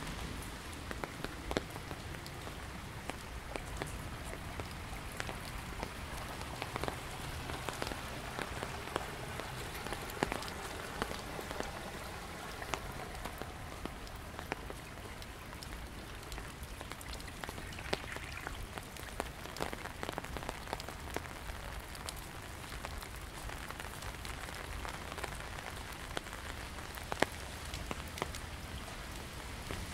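Rain-swollen stream running steadily, with scattered sharp taps over the water noise.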